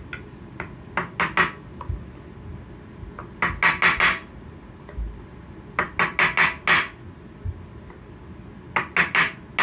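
Hammer striking the end of a screwdriver used as a rammer, packing granulated powder fines hard into a timed-fuse tube held in a wooden jig. Sharp metallic knocks come in four quick runs of several blows each.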